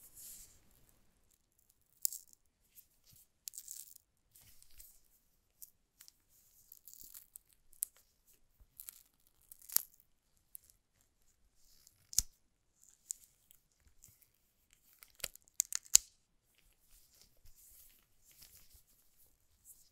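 Gloved hands handling a coiled USB-C cable and pulling at the strip that binds it: scattered soft crinkling rustles with a few sharp clicks, the loudest about three-quarters of the way through.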